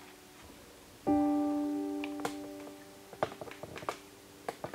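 A soft piano chord is struck about a second in and rings on, slowly fading. Near the end there is a scatter of short, sharp clicks.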